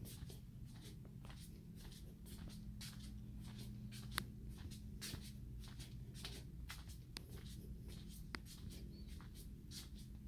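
Flip-flops slapping against a hard floor with each walking step, light slaps about two or three times a second, over a steady low hum.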